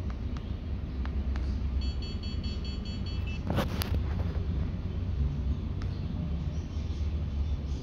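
Alcatel feature phone powering on: a short run of quick high electronic beeps about two seconds in, followed by a brief burst of noise, over a steady low rumble.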